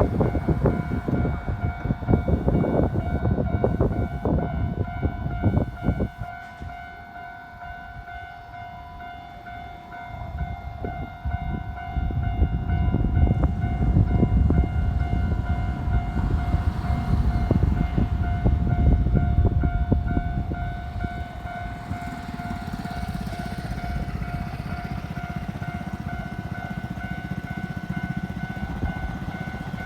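Railway level-crossing warning alarm ringing steadily while Keikyu electric trains run over the crossing. Wheels clack over the rail joints for the first few seconds, then it is quieter. Another loud passage of train rumble follows from about ten seconds in and settles to a softer, steady rumble near the end.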